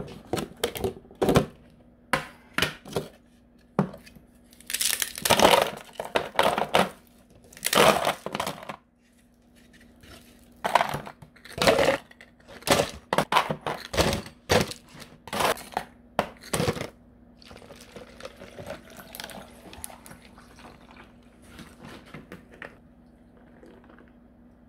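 Things being handled by hand: a quick run of sharp rustles, crinkles and knocks, thinning to faint scattered rustling after about 17 seconds, over a steady low hum.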